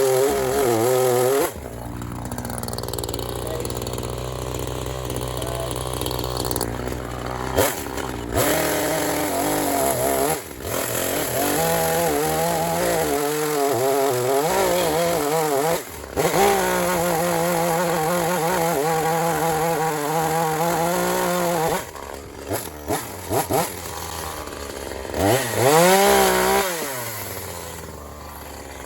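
Gas chainsaw revving up and down and dropping back to idle as it cuts big chunks off a log. The sound breaks off and changes abruptly several times, with a rising and falling rev near the end.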